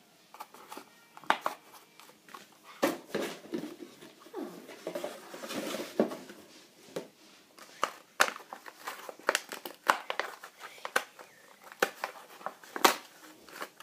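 Hot Wheels carded blister pack being pried and torn open by hand: irregular crinkling of the plastic blister and cardboard backing, with many sharp clicks and snaps.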